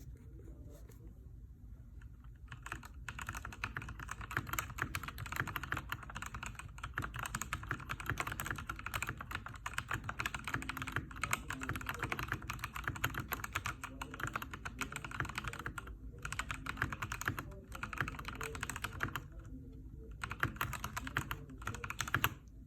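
Epomaker EP84 mechanical keyboard with stock Gateron Yellow linear switches being typed on quickly: a dense, steady run of key clacks that picks up about three seconds in, broken by a few brief pauses.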